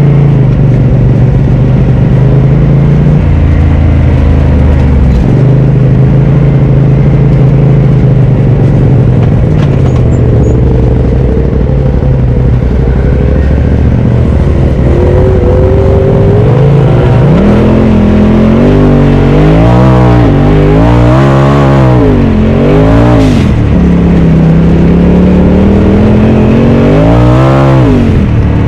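Polaris RZR Turbo side-by-side engine running at a steady pull, then revved up and back down about four times in quick succession a little past halfway, with one more rev near the end.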